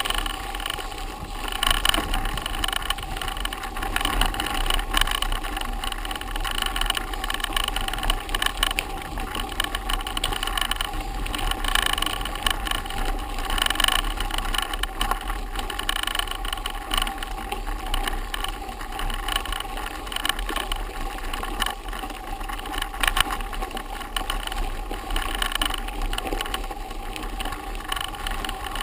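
Mountain bike ridden over a bumpy dirt and grass trail: continuous rattling of the bike with frequent sharp knocks as it jolts over the ground.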